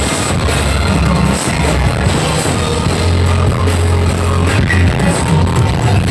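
Live band music playing loudly over a concert sound system, with a heavy, steady bass line under drums and keyboards.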